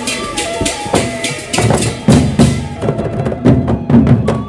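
Sasak gendang beleq ensemble playing: quick, evenly spaced cymbal clashes over held metallic gong tones. About two seconds in, heavy strokes on the large barrel drums come in and become the loudest part.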